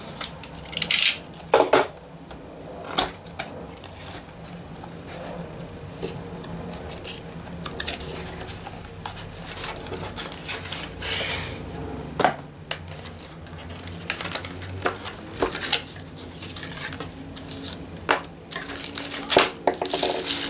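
Cardboard packaging being opened and handled by hand: irregular clicks, knocks and rustles, with bursts of scraping or tearing about a second in and again near the end.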